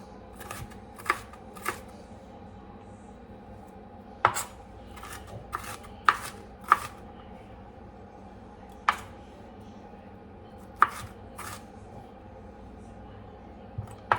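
A knife chopping food on a cutting board: about a dozen single, sharp chops at an uneven pace, some in quick pairs and others several seconds apart.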